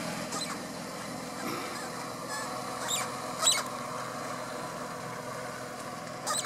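Car engine idling steadily, with a few sharp bird chirps over it, the loudest about three and a half seconds in.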